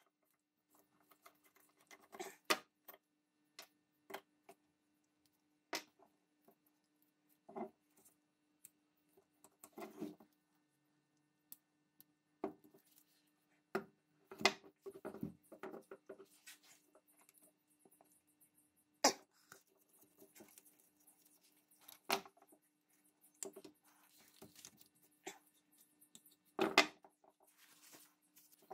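Scattered clicks, taps and knocks of the rusty metal parts and wooden grip of an 1840 Stocking & Co. pepperbox pistol being handled and set down on a wooden workbench during disassembly. A few knocks are louder, about halfway through and near the end, over a faint steady hum.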